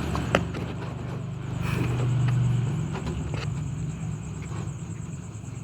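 A low droning hum that swells about two seconds in and then eases off, with a sharp click near the start and a few fainter ticks.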